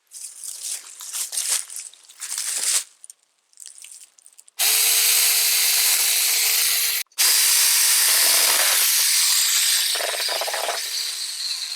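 A battery-powered mini chainsaw cutting a length of firewood: first some handling and rustling of wood, then the electric motor starts about four and a half seconds in and runs steadily, stops for a moment, starts again and runs on, then winds down near the end.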